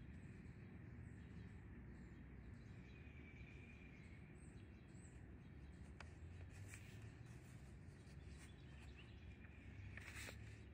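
Faint quiet ambience with a few distant bird chirps; about ten seconds in, a paper catalogue page rustles as it is turned.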